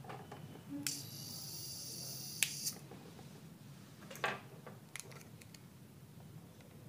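A click, then about a second and a half of high hissing squeal from the Polytron uSlim CRT TV's power supply, cut off by another click, with a few more clicks near the middle. The squeal is the TV's fault symptom: its B+ supply sags, a fault traced to a dried-out 115 V B+ filter capacitor.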